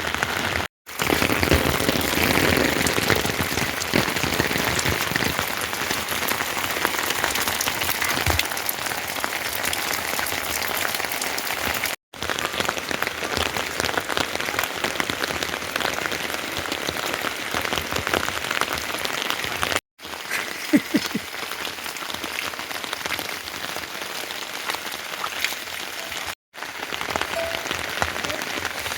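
Heavy rain falling steadily, a dense patter of drops on surfaces, cut off by a brief silent gap four times.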